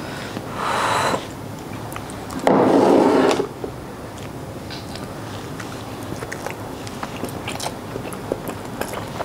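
A man eating salmon sashimi, with small wet chewing and mouth clicks close to a clip-on microphone. Two short rustling noises come through, the louder one about two and a half seconds in.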